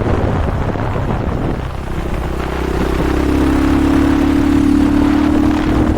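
KTM 500 EXC-F dirt bike's single-cylinder four-stroke engine running under way on a ride, with a rush of noise over it. About two seconds in, the engine settles into a steady, held note.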